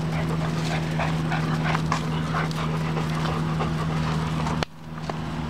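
Weimaraner puppies playing rough: scuffling on dirt with scattered short puppy sounds, over a steady low hum. A sharp click comes about four and a half seconds in, and it is quieter after it.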